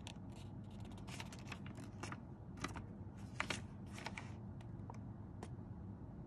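Faint, irregular clicks and ticks over quiet room tone, thickest in the first few seconds and thinning out later.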